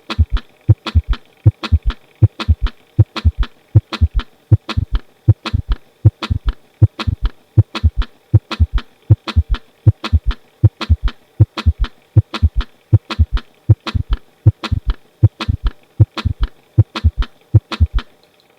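Recorded heart sounds: lub-dub with an abnormal third heart sound (S3) early in diastole, giving a steady run of short, low-pitched thumps in a gallop rhythm. The S3 is the sign of left ventricular failure.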